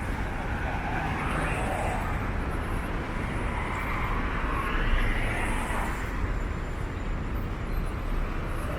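Downtown street traffic: a steady road rumble with cars passing, their noise swelling and fading a couple of times.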